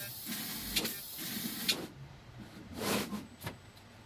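CNC fiber laser cutter working on 11-gauge steel square tubing: a steady hiss with motor whirs and sharp clicks as the cutting head moves from hole to hole. The hiss cuts off suddenly about two seconds in, followed by one brief louder whir and a click.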